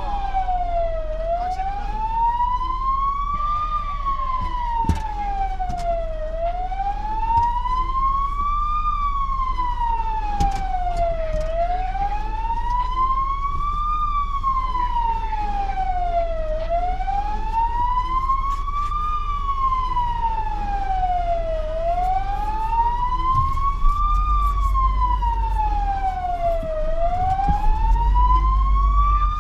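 Fire engine's siren on a slow wail, heard from inside the cab: one tone sliding up and down, about five seconds for each rise and fall, over the low steady running of the truck's engine.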